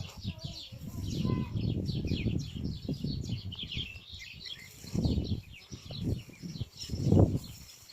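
Thunder rumbling: a long low roll over the first few seconds, then two shorter rumbles about five and seven seconds in. Small birds chirp rapidly and continuously over it.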